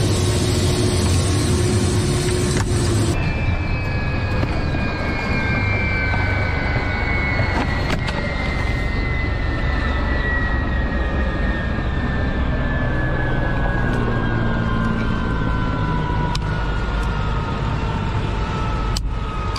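Ka-52 helicopter's twin turboshaft engines winding down after landing: a slowly falling whine over a loud, steady rumble, with a few sharp clicks.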